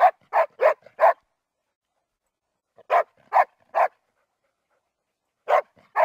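Weimaraner barking in quick clusters: four short barks, a pause, three more, then another near the end.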